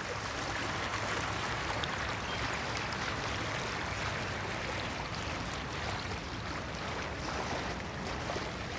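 Rushing water of a river running high, with rain pattering onto the surface as fine ticks over the steady wash.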